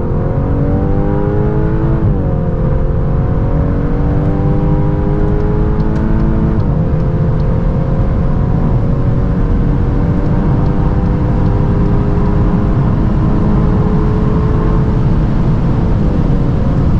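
Volkswagen Golf R's turbocharged four-cylinder engine under full-throttle acceleration at high speed. The engine note climbs steadily in each gear and drops sharply at three quick upshifts, about two, six and a half and sixteen seconds in, with each gear lasting longer than the last. Heavy road and wind rumble runs underneath.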